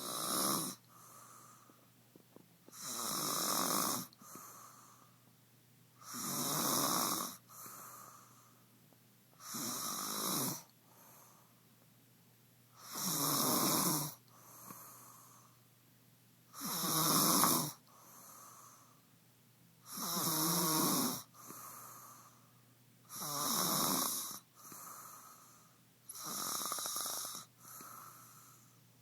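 Snoring in a steady rhythm: nine long snores, about one every three and a half seconds, each followed by a shorter, softer breath.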